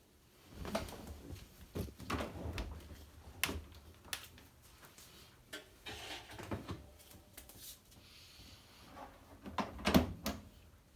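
Towels being handled and loaded into the drum of a Hotpoint FETC70BP condenser tumble dryer: scattered soft thumps, rustles and clicks, with a sharper knock about ten seconds in.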